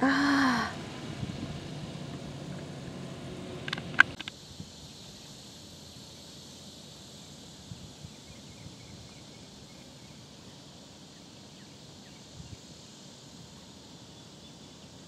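Faint, steady outdoor background. It opens with a short, loud pitched call whose pitch rises and falls, and a single sharp click comes about four seconds in, where the background changes.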